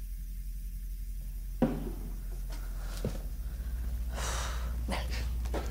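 A short, sharp breath or sniff about four seconds in, after a single soft knock, over a low steady hum.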